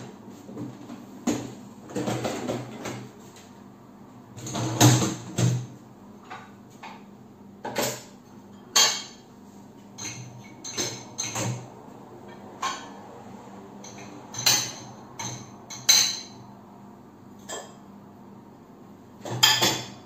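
Dishwasher being opened and loaded: the door dropping open, the wire racks rattling as they are pulled out, and glass bowls set into the upper rack, giving irregular clatters, knocks and clinks of glass on metal wire.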